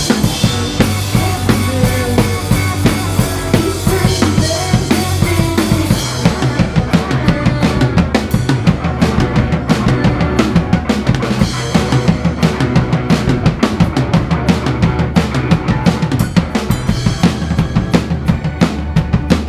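A rock band playing live, loud, with the drum kit to the fore: kick and snare over a steady bass. A wavering melodic line runs over the first few seconds, then the drums take over about six seconds in with dense, fast hits.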